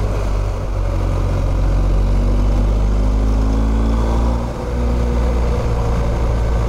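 BMW R1250 GS 1254 cc boxer-twin engine running under way on a rough track, with wind rushing over the microphone. The engine eases off briefly about four and a half seconds in, then picks up again.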